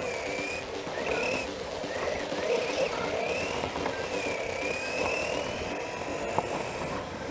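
Electric RC car motor whining as it races on carpet, its pitch rising and falling again and again with the throttle, over rumbling drivetrain and tyre noise.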